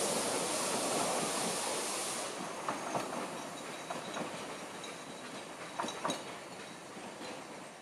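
Narrow gauge railway coaches rolling past and away, wheels clicking over the rail joints, the noise fading steadily as the end of the train recedes. A high hiss drops out about two seconds in.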